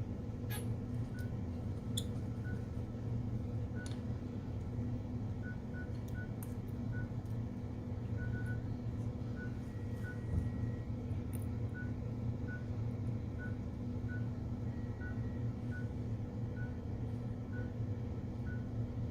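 Steady electrical hum with short, faint electronic beeps at one pitch repeating at irregular intervals, two of them held longer, and a few light clicks of small parts being handled.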